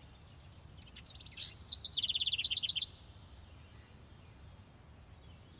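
A songbird sings one song of about two seconds, starting about a second in: a few quick high notes, then a fast trill of repeated notes that stops abruptly.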